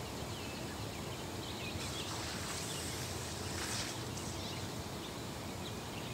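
Outdoor ambience: a steady low rumble and hiss with a few faint chirps, and a brief rush of noise about three and a half seconds in.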